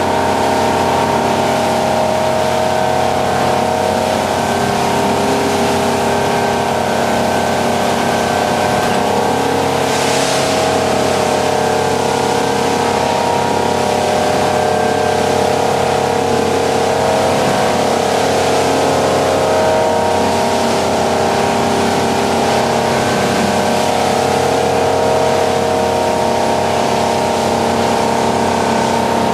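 Motorboat engines running steadily at speed on open water, a constant drone over the rush of water and wind. A short hiss of spray about ten seconds in.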